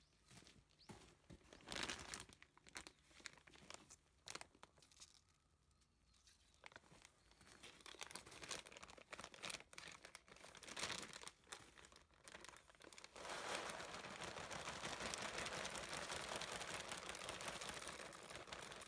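Plastic soil bag crinkling and rustling as it is handled. About two-thirds of the way in, a steady hiss begins as soil pours from the bag into a plastic bucket.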